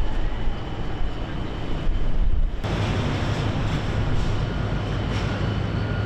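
Steady low rumble of outdoor background noise, like engines or machinery. About two and a half seconds in it changes abruptly to a different steady hum.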